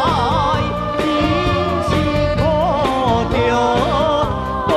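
Taiwanese popular song with a wavering, vibrato-laden lead melody over a steady bass beat, in a passage without sung words.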